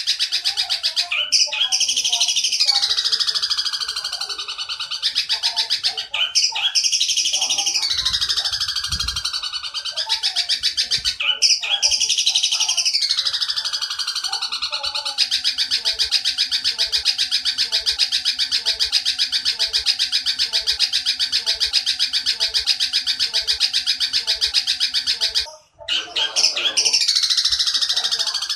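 Looped birdsong training track for long-tailed shrikes, built from a Eurasian tree sparrow's long chattering ('gereja nyerecet panjang') and a 'kuntilanak' call. Three descending chattering phrases come a few seconds apart, then one long unbroken rapid chatter that cuts off suddenly near the end before the loop starts again.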